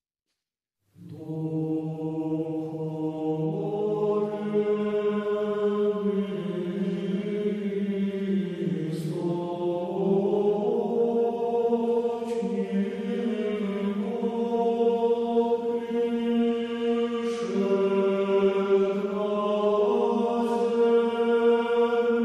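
Slow sung chant as background music: voices holding long notes that move in steps over a steady low drone, starting about a second in after silence.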